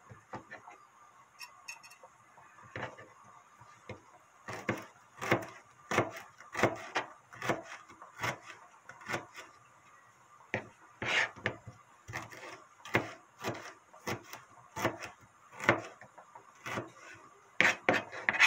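Irregular light knocks and clicks of kitchen utensils and containers being handled, a few every second or so, some louder than others.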